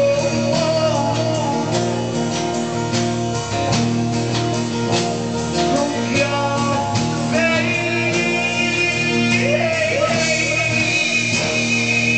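Live rock band playing a song: drums hitting steadily under held instrument notes, with a voice singing.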